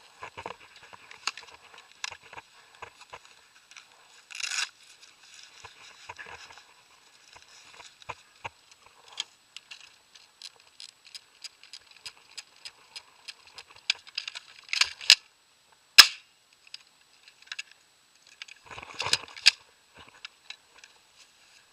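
Airsoft guns firing: a run of sharp snapping shots, about two or three a second for several seconds, with a few louder cracks near the end.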